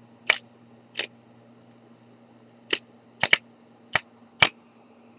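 Playing cards squeezed between thumb and fingers snapping out of the deck one at a time: seven sharp snaps at irregular intervals, two of them close together about three seconds in.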